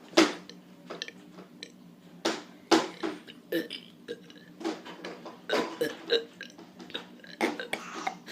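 Someone burping in a quick string of short burps, about one a second, the first one the loudest.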